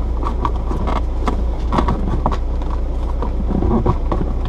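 Scattered clicks, knocks and rustles of hands working an antenna cable through car interior trim, over a steady low rumble.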